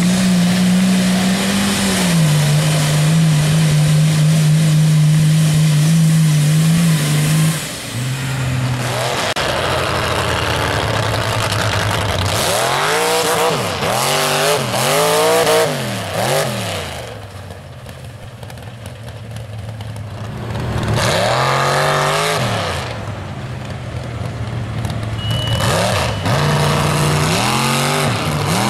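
Mud trucks' engines running hard through a mud bog: first one held at high, steady revs, then engines revved up and down again and again in repeated rising and falling sweeps.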